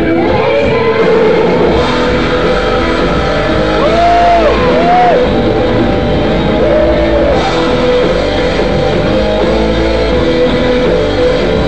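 Loud rock-style band music playing, with a few short arching melody notes about four to five seconds in.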